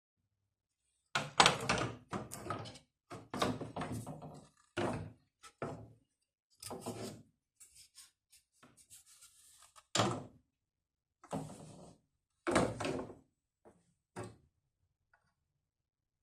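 A series of about a dozen irregular knocks and thunks with short ringing tails, loosely spaced, like hard objects being handled and set down.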